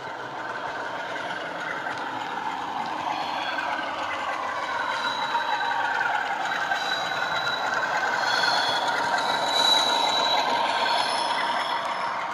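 A model Class 47 diesel locomotive's sound decoder playing a Class 47 diesel engine sound through its speakers, mixed with the mechanical running noise of the model's motor, gears and wheels. It grows louder as the locomotive comes near, loudest about ten seconds in as it passes, then eases a little.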